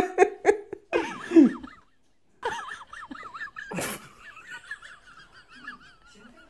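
Laughter in a string of short pulses, then a brief gap and a short loud shriek about four seconds in, followed by a faint wavering tone.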